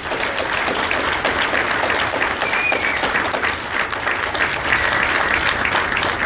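An audience applauding, many hands clapping steadily together.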